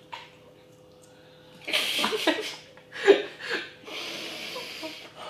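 Stifled laughter and snorting breaths, muffled behind a hand over the mouth, from someone struggling through a foul-tasting snack. Two short bursts come about two and three seconds in, then a long breathy exhale.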